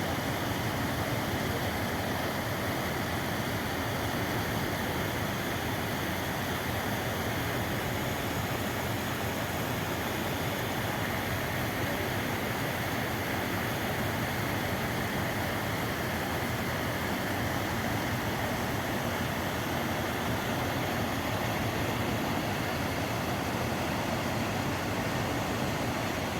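Mountain stream rushing steadily: an even, unbroken water noise.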